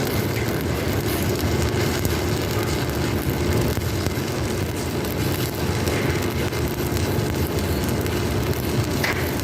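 Steady crackling hiss of electric arc welding over a continuous low machine hum.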